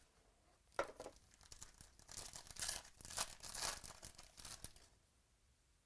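Trading-card packaging being torn open and crinkled by hand: a short rustle about a second in, then a run of tearing and crinkling that stops about five seconds in.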